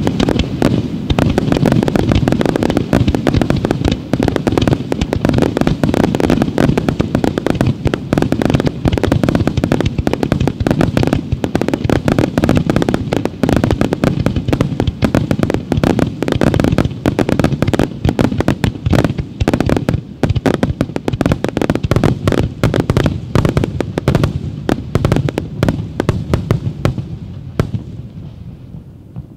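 Wide starmine fireworks: a dense, unbroken barrage of shells launching and bursting many times a second. It thins out and fades near the end.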